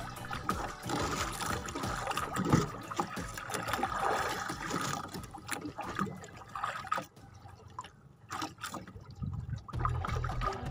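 Sea water sloshing and splashing against the hull of a small outrigger boat, uneven with scattered small slaps. It drops to a quieter stretch about seven seconds in, then picks up again near the end.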